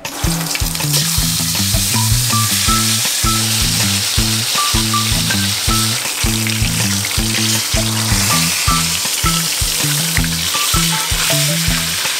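Whole tilapia frying in hot oil in a pan, a steady dense sizzle throughout, with background music playing a repeating beat underneath.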